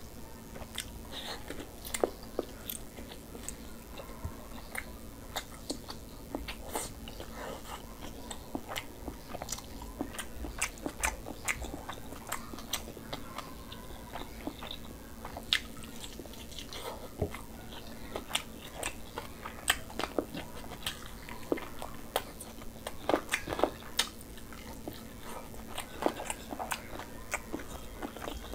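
Close-miked eating: a man biting and chewing a curried chicken leg eaten by hand, with many sharp, irregular clicks and crunches.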